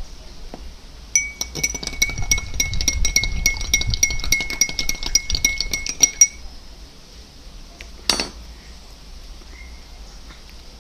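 A metal spoon stirring in a glass, clinking rapidly against the side for about five seconds, each strike leaving the glass ringing at the same pitch. One sharper knock follows near the end.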